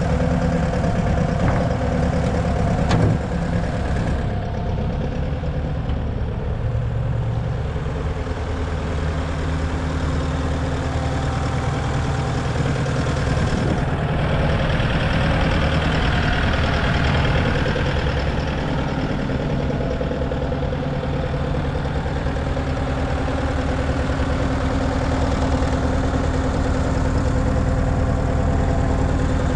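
Bobcat T750 tracked skid steer's 3.4-litre turbo diesel idling steadily with no revving, consistent with a machine listed as unable to throttle up. One sharp knock comes about three seconds in.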